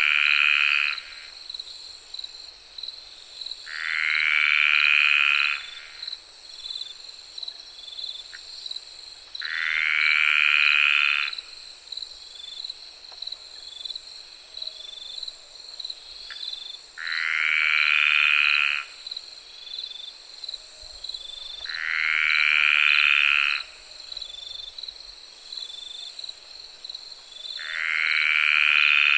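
Frogs calling at night: a loud call of about a second and a half with a rising note repeats every five or six seconds, six times in all, over a steady, fast-pulsing high trill and the faint high hum of distant insects.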